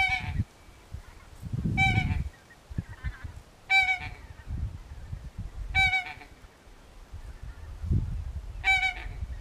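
Goose honking: a short, nasal call repeated five times at roughly two-second intervals. Low rumbling noise on the microphone comes between the calls.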